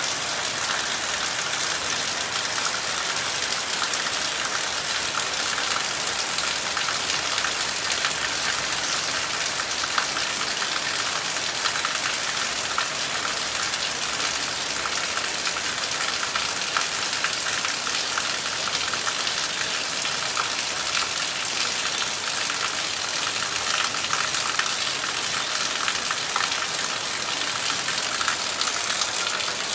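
Heavy rain falling steadily, a dense even hiss with no thunder or single loud events.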